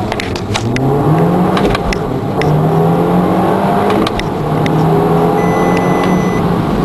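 Audi S3's 265 hp 2.0-litre turbocharged four-cylinder under full-throttle acceleration, heard from inside the cabin. The engine note climbs with the revs, breaks briefly about four seconds in for an upshift, then climbs again in the next gear.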